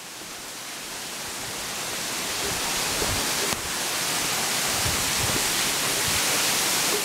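Waterfall plunging onto rocks: a steady rush of falling water that grows steadily louder as it is approached.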